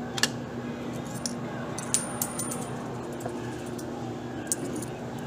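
Steady low electrical hum from a vending machine, with a few sharp clicks or clinks: one near the start, one about two seconds in and one near the end.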